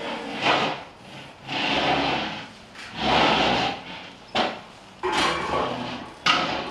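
Rhythmic rasping, scraping swells, one roughly every second, each lasting up to about a second.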